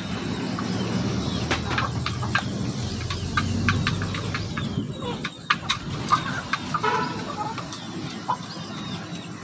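Gamefowl clucking in short calls, with scattered sharp clicks. A low rumbling noise runs through the first half.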